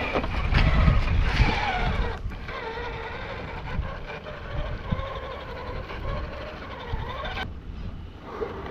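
Electric drive motor and gears of a Redcat Gen 8 RC rock crawler whining as it climbs, the pitch wavering up and down with the throttle, then cutting off about seven and a half seconds in. Gusts of wind rumble on the microphone during the first two seconds.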